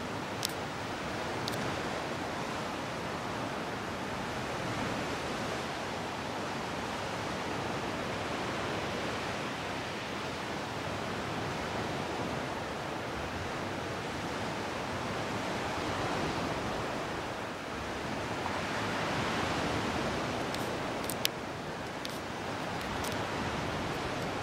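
Steady sea surf washing on the shore, mixed with wind. A few short sharp clicks sound near the start and again near the end.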